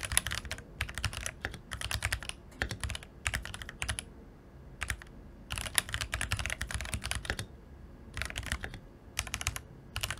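Typing on a Keychron V1 mechanical keyboard with factory-lubed Keychron K Pro Brown switches in a plastic case: quick runs of keystrokes clacking in bursts with short pauses between.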